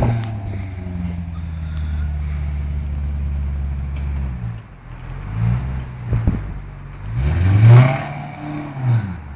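Maserati GranTurismo's V8 engine idling steadily, then dipping about halfway through and picking up as the car pulls away, its note rising to a loud peak near the end and falling off again.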